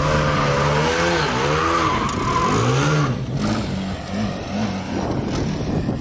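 Formula SAE race car engine revving up and down as the car is driven through turns, its pitch rising and falling again and again. The revs settle into smaller, quicker swings near the end.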